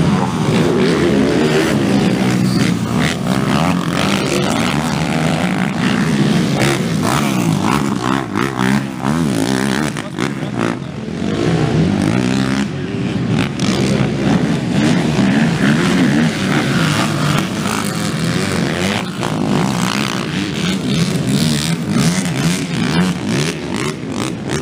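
Racing ATV engines revving around a motocross track, their pitch rising and falling again and again as riders throttle on and off through the turns and jumps.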